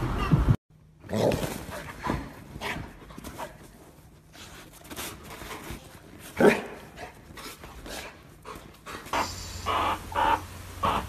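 Large white dog barking a few times, with one loud bark about six and a half seconds in. From about nine seconds, a run of short repeated calls comes about twice a second.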